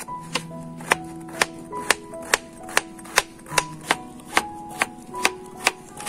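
Kitchen knife slicing a bitter gourd on a wooden cutting board, the blade knocking the board in a steady rhythm of about two cuts a second, over background music.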